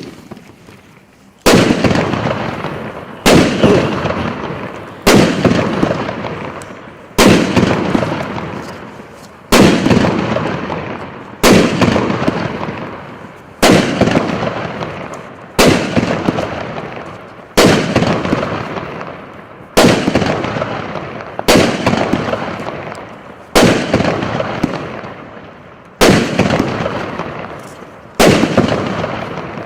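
A 48-shot, 1.25-inch consumer firework cake firing its shells one after another, about one every two seconds. Each shot gives a sharp bang followed by a dense rush of sound that dies away before the next one.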